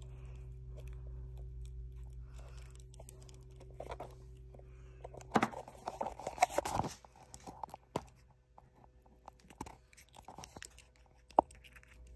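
Plastic clicks and rustling from a smoke alarm being handled while a 9-volt battery is fitted, a busy cluster of clicks about five seconds in, then scattered single clicks. A steady low hum runs under the first five seconds and then stops.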